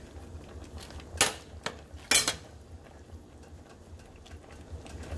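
A few sharp clinks of a kitchen utensil against a cooking pot, the loudest about two seconds in, over a low steady hum.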